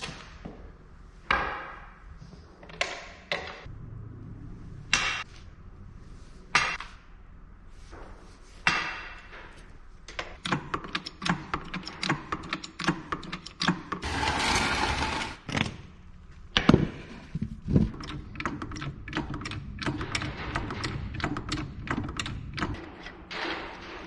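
Steel tools working on a Ford 7710 tractor's front wheel: sharp clanks, each ringing briefly, as a long breaker bar cracks the wheel nuts loose. After about ten seconds they give way to a long run of quick metallic clicks and rattles, with a second and a half of harsher noise about fourteen seconds in.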